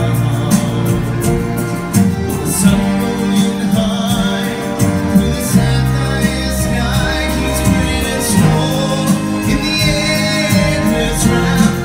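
Stage-show music with singing over a steady beat, played loud through a theatre sound system.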